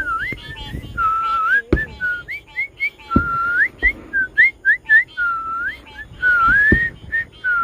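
Someone whistling a loose run of short swooping notes, with a few longer held notes that dip and rise again. Three or four sharp thumps come in between.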